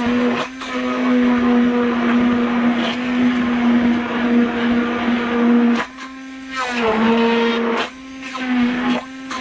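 Immersion blender running with a steady motor hum, its blade chopping and liquefying chunks of watermelon in a pot. The sound drops away briefly about six seconds in and again near eight seconds, then comes back.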